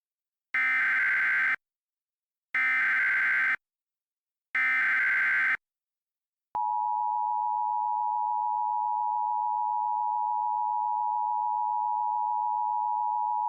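Emergency Alert System activation: three one-second bursts of SAME header data tones, then the steady two-tone EAS attention signal (853 and 960 Hz together) begins and keeps sounding. The tones announce an emergency alert message.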